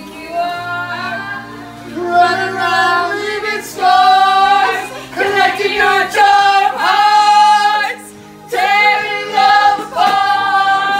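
A group of young women singing together, loud and in long held notes with short breaks between phrases.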